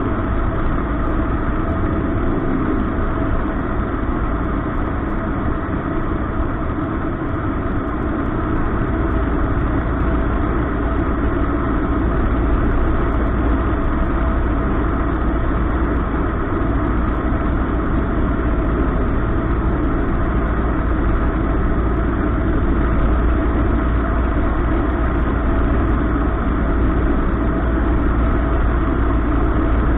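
Cessna 152's four-cylinder Lycoming piston engine and propeller droning steadily in flight, heard inside the cabin. The low part of the drone grows stronger about nine seconds in.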